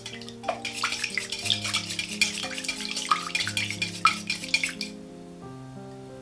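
Wire whisk beating eggs and milk in a glass bowl: quick clicks of the wires against the glass and the liquid sloshing, stopping about five seconds in. Soft background music plays underneath.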